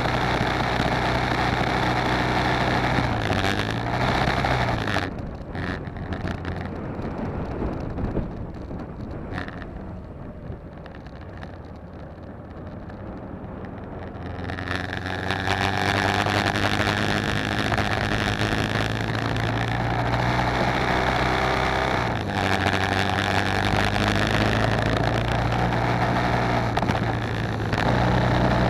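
BMW G650GS single-cylinder engine running under way. The engine note bends and the sound turns quieter for several seconds in the middle, then picks up again, with further changes in pitch near the end.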